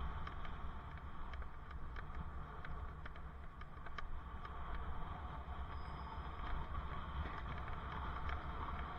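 Wind rumble on a helmet-mounted camera's microphone and road noise from a bicycle rolling along a city street, with scattered light clicks and rattles. A brief high tone sounds about six seconds in.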